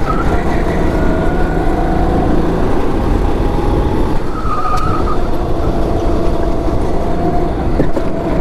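Go-kart engine running under load through corners, recorded onboard, with a heavy rumble of wind on the microphone underneath. The engine note dips and rises a little with the throttle.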